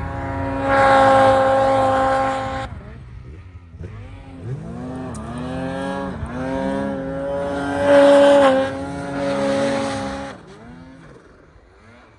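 Snowmobile engine revving hard through deep powder, its pitch rising and falling with the throttle. It is loudest in a long burst about half a second in and again around eight seconds in, then fades as the sled moves away.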